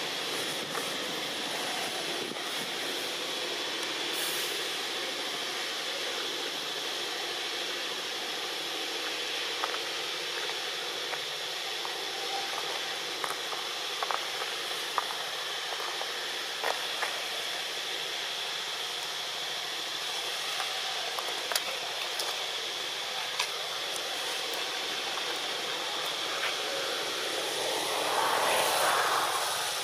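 Steady hissing outdoor background noise with a faint, steady high tone and scattered light clicks. A whooshing swell rises and falls near the end.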